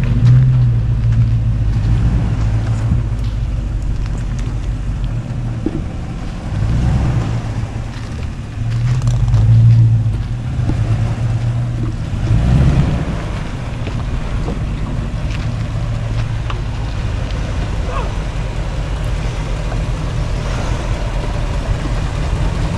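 First-generation Toyota truck's engine running low and steady while crawling a rocky trail, swelling louder about four times in the first half.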